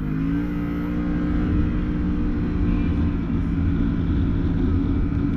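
Can-Am Maverick Sport X mr side-by-side's engine revving up in the first half second, then running steadily under load as it drives.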